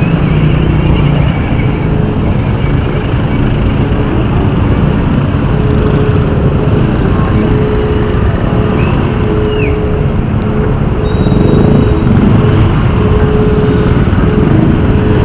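Steady road noise from a bicycle ride in traffic: motor vehicles running alongside, with a loud low rumble of wind and motion on the microphone. Two short chirps sound about nine seconds in.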